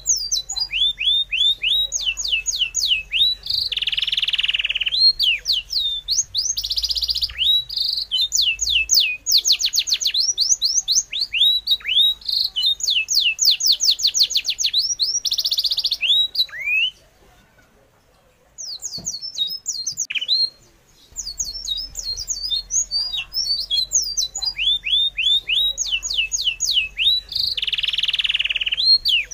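Birdsong: fast runs of high, falling whistled notes repeated over and over, with a few harsher calls mixed in. The song drops out for a few seconds past the middle.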